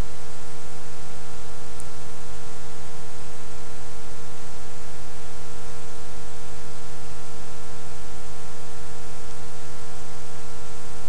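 Steady electrical hum and hiss, with several unchanging tones at different pitches layered over the noise.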